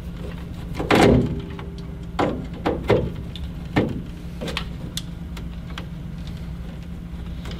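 Hands handling plastic wire-harness connectors and a screwdriver inside a boiler's control compartment, making a string of short clicks and knocks, the loudest about a second in. A steady low hum runs underneath.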